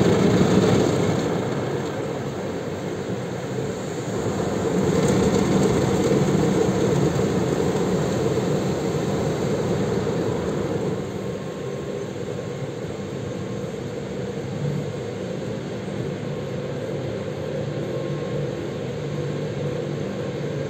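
Automatic gantry car wash heard from inside the car: water spraying across the windshield and body, loudest near the start and again from about 4 to 10 s. After that it settles into a steadier machine drone with a low hum from the gantry.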